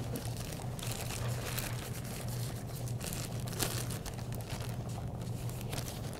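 Small plastic snack-size bag crinkling in gloved hands as it is handled, in soft scattered crinkles over a steady low hum.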